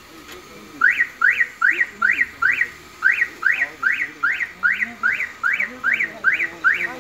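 A vehicle's electronic warning alarm sounding a rapid train of sharp rising chirps, about two and a half a second. It starts about a second in and pauses briefly once.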